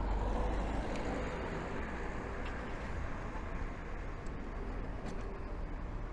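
Road traffic noise, with a vehicle going past that is loudest at the start and slowly fades.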